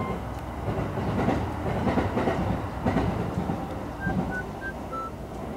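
A low, rough rumble swells for about four seconds and then fades, with soft background music notes above it.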